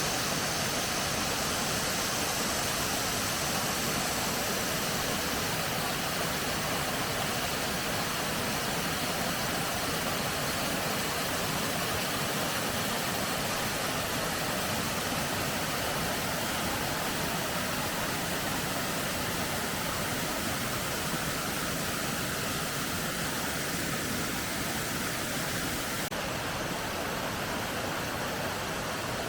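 Mountain valley stream rushing steadily over rocks, an even splashing wash of water.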